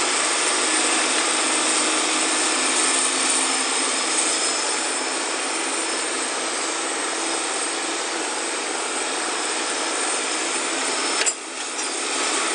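Hitachi hydraulic excavator running steadily under load as it digs in the river, a continuous machine noise that briefly drops out about eleven seconds in.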